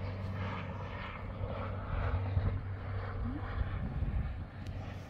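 Steady low hum of a camera drone's propellers while it hovers.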